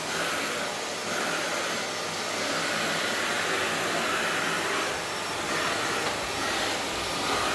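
Miele vacuum cleaner running steadily, a whine in its motor noise wavering slightly up and down.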